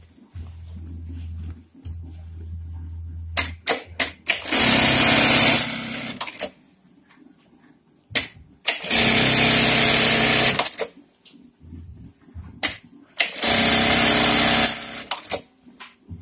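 Juki computer-controlled industrial sewing machine sewing three short high-speed cycles, each lasting about one and a half to two seconds and preceded by a few sharp clicks. A low steady motor hum fills the first few seconds and the pauses between cycles.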